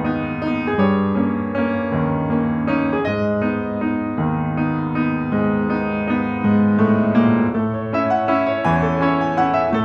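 Background piano music: a gentle keyboard melody over held chords, notes changing every half-second or so.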